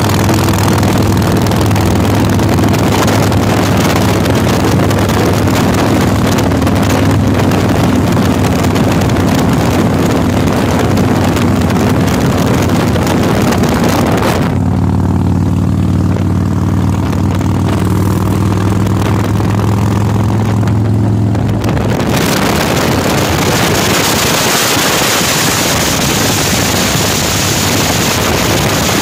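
Motorcycle engine running steadily at cruising speed, with wind rushing over the microphone. For about seven seconds in the middle the wind hiss drops away and the engine's low, even hum comes through plainly.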